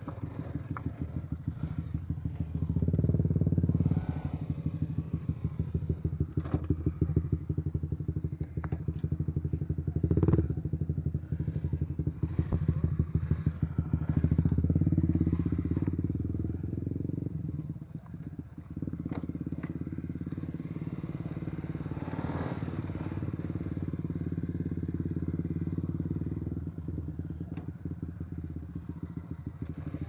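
Honda CBR150R's single-cylinder four-stroke engine running at low speed on a rough dirt track, the throttle opening and closing so the engine note rises and falls, louder a few seconds in, around ten seconds and for several seconds past the middle, with a short dip after that. Scattered knocks and clatter from the bike riding over stones.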